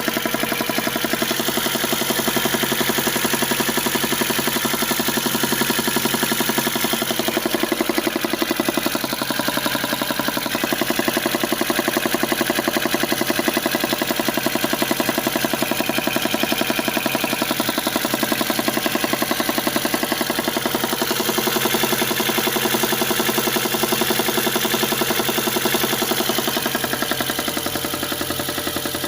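VAZ car engine idling cold with a rapid, even knocking throughout. The owner notes that the knock disappears once the engine warms to about 50°.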